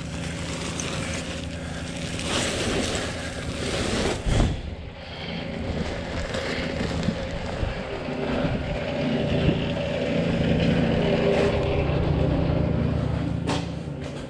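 A motor or engine drones steadily, a little louder in the second half, with a single knock about four seconds in.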